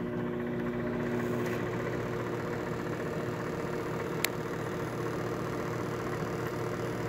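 Microwave oven running: a steady electrical hum with fan noise, and one faint tick about four seconds in.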